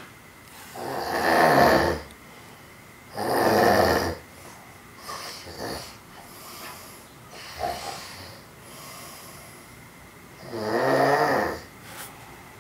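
A sleeping man snoring loudly in serious, heavy snores. Three long snores of about a second each come through, two in the first four seconds and one near the end, with fainter breaths in the long gap between.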